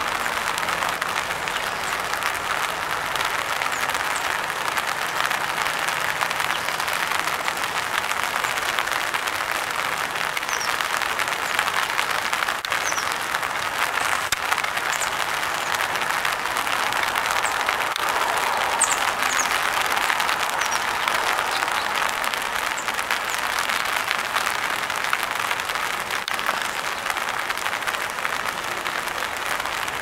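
Steady rain pattering on an open umbrella, a dense even crackle that never lets up.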